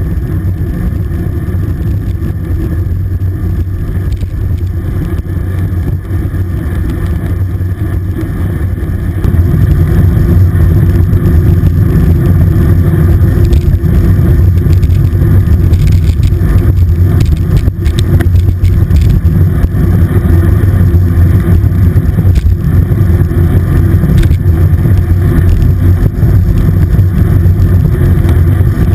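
Wind buffeting the microphone of a handlebar-mounted camera on a road bike moving at speed: a steady, heavy low rumble that gets louder about nine seconds in.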